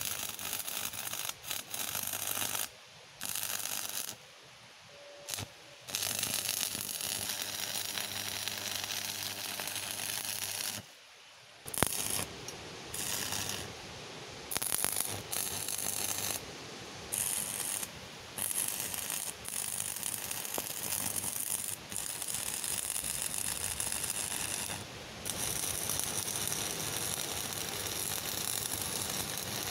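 Electric arc welding on steel: a steady crackling hiss from the arc. It stops and restarts several times as the welder breaks off and strikes the arc again.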